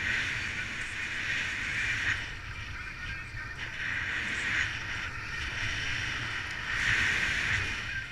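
Wind rushing over the camera microphone in paraglider flight: a steady hiss that swells and eases several times, over a low buffeting rumble.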